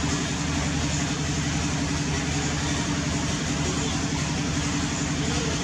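Steady low engine hum, like a motor idling, holding level without change.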